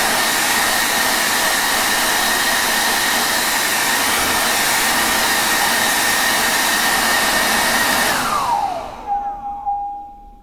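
Hair dryer blowing steadily, an even rush of air with a motor whine over it. About eight seconds in it is switched off: the whine falls in pitch and the rush dies away as the motor spins down.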